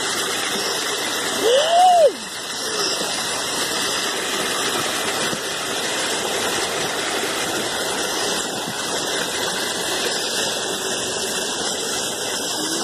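Floodwater rushing steadily into a street storm drain, a continuous rushing noise. About two seconds in, a short tone rises and falls once over it.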